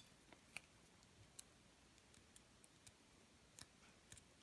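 A few faint, sharp clicks and ticks, about four that stand out, spread irregularly over near silence: small metal lock parts being handled.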